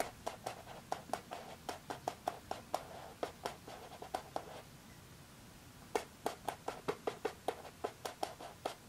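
Regular clicking, about four clicks a second, as a mug is turned by hand on its stand. The clicking stops for about a second midway, then starts again.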